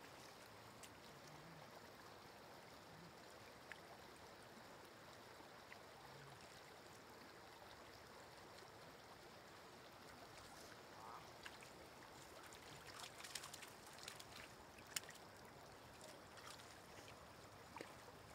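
Faint, steady trickle of shallow running floodwater, with a few small splashes and clicks from hands working in the water about two-thirds of the way through.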